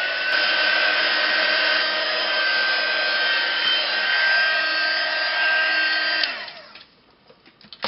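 Handheld craft heat tool blowing hot air to dry wet spray mist on a canvas: a steady whirring fan with a whine, rising in pitch as it is switched on and winding down about six and a half seconds in. A sharp click near the end.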